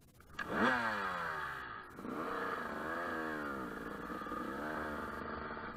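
Dirt bike engine revved sharply about half a second in, its pitch falling away afterwards. It then rises and falls again twice as the bike pulls away and rides off along the dirt trail.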